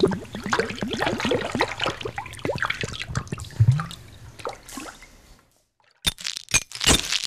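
Liquid splashing and dripping sound effects, a quick run of wet splats and drips that thins out and stops about five seconds in. About six seconds in, a series of sharp cracks begins.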